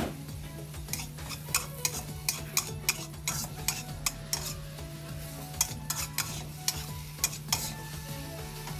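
Metal wok spatula scraping and knocking against a steel wok in quick, irregular strokes, about two a second, as a shrimp-and-vegetable stir-fry is tossed. The food sizzles steadily underneath.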